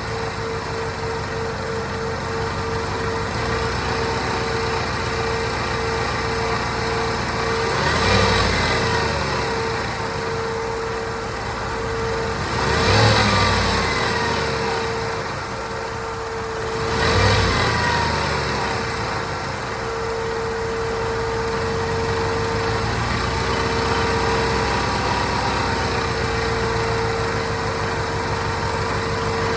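Whipple-supercharged 6.2 L V8 of a 2013 Ford Raptor idling with a steady hum, blipped up and back down three times. The owner takes the hum, which is not the usual supercharger whine, for worn front or rear rotor bearings in the blower.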